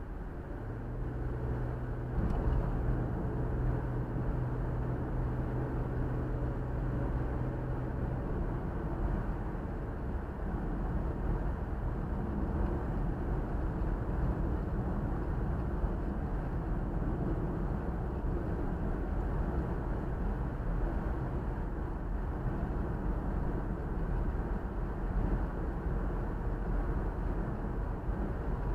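Steady road noise of a car driving along: a low rumble of tyres and engine. A low steady hum sits over it from about a second in until about eight seconds.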